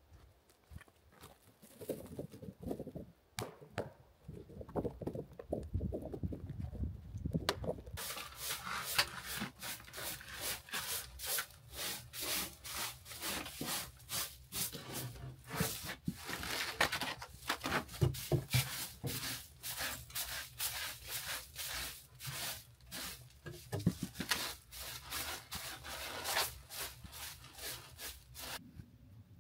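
A short straw hand broom sweeping snow and dirt across wooden floorboards into a plastic dustpan, in quick repeated scratchy strokes. The first few seconds hold only quieter scuffs and knocks before the sweeping starts.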